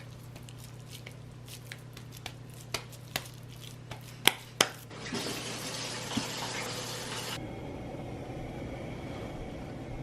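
A few light knocks and clicks of kitchen handling, the two loudest about four and a half seconds in. Then a kitchen tap runs water from about five seconds in, its hiss turning abruptly duller a couple of seconds later and carrying on.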